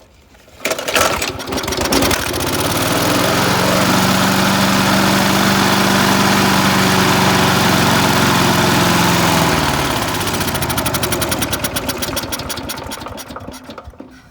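Briggs & Stratton Quattro 40 single-cylinder lawn mower engine, primed and with a freshly cleaned carburetor, pull-started and catching almost at once. It runs steadily for about eight seconds, then is shut off and winds down to a stop, its firing beats slowing as it coasts.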